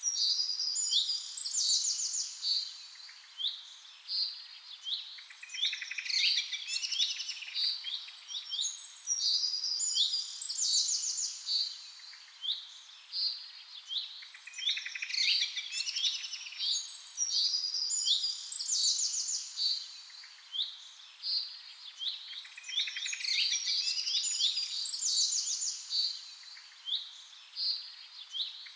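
A songbird singing: rapid trills, chirps and whistled notes in lively phrases, with a similar run of phrases coming back about every eight seconds.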